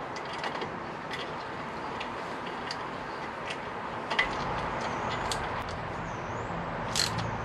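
Small metallic clicks and ticks of exhaust bolts being threaded in by hand against the chrome exhaust can and its clamp, with a knock about halfway and a sharper metallic clink near the end.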